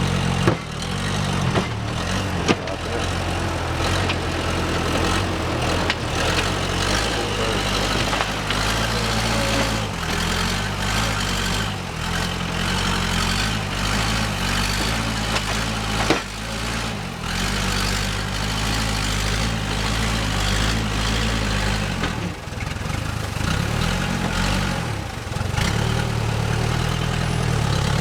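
Engine of a heavy machine working a compost pile, running steadily with its note and load shifting as it moves, and a few sharp clanks.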